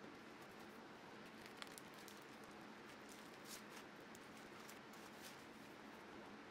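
Faint crackling and scattered soft ticks of old, gummy protective plastic film being peeled off a jointer's rusty tables, over a low hiss.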